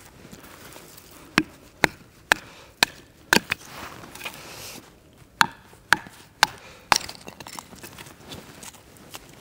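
Firewood being chopped: sharp strikes of a blade into wood about twice a second, a run of five and then, after a short pause, a run of four.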